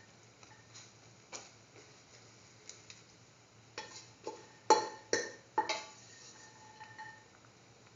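A spoon clicking and knocking against a metal cooking pot while the beans and soy chunks are stirred: scattered light taps, then three sharp ringing knocks about halfway through.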